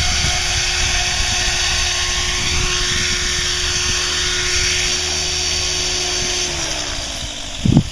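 Align T-Rex 500E electric RC helicopter's brushless motor and rotor giving a steady high-pitched whine, then spooling down after landing, its pitch falling from about six and a half seconds in. A thump near the end.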